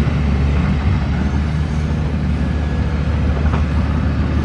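Doosan DX55 mini excavator's diesel engine running steadily as the machine digs, a continuous low hum.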